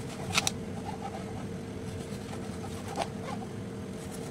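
Kitchen knife cutting through fried fish paste and knocking on a plastic cutting board: a quick double knock about half a second in and a single knock about three seconds in, over a faint steady hum.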